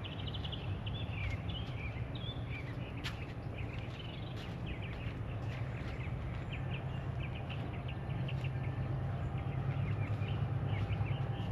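Several birds chirping and twittering over a steady low rumble that grows a little louder near the end.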